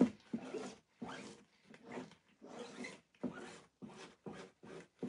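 Fingertips rubbing back and forth over a silkscreen stencil laid on a burlap board: a quick run of short rubbing strokes, about two to three a second.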